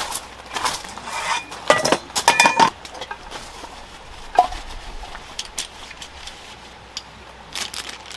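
Stainless steel bowls and plates clinking and knocking together as they are handled and set down, with a cluster of ringing metal clatters about two seconds in and a single clink about four and a half seconds in.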